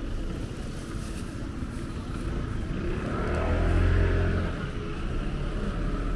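A motor vehicle passing close by on a city street: its engine and tyre noise swell up to a peak about four seconds in and fade away again, over a steady street background.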